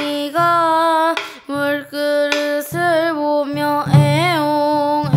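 Pansori-style singing: a single voice sings drawn-out phrases with wavering held notes over a low accompaniment.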